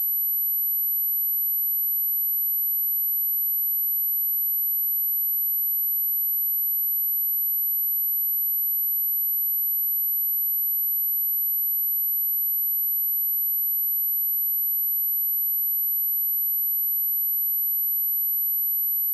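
A steady, very high-pitched pure sine tone at 11824 Hz, held at one pitch and level throughout: a speaker test tone, also played to shake water and dust out of a speaker.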